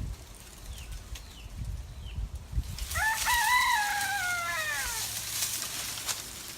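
A rooster crowing once, about three seconds in: one call of roughly two seconds that rises briefly and then falls away in pitch.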